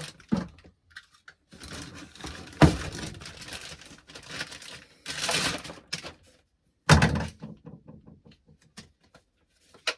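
Packaging and a plastic RC transmitter being handled: rustling of bag and cardboard, two sharp knocks about a third of the way in and again past the middle, then a run of small plastic clicks.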